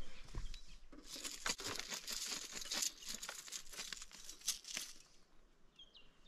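Freshly landed trout thrashing in a wet landing net, a crackling, splattering rustle full of sharp ticks that dies away about five seconds in. A few faint bird chirps follow near the end.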